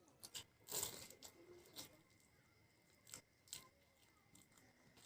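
A few faint, crisp crunches and clicks, the loudest about a second in, with quiet room tone in between.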